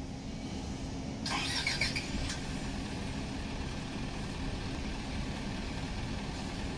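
Isuzu FTR's 205 hp diesel engine idling steadily. A brief higher-pitched noise sounds over it about a second in and lasts about a second.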